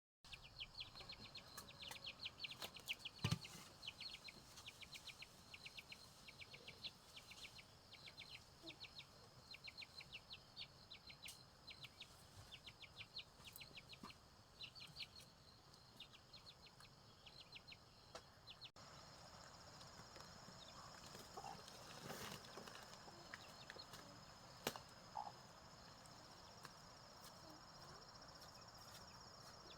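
Faint animal chirping: a quick run of short, high chirps, about three a second, that gives way about two-thirds of the way in to a steady high hum with a few scattered clicks.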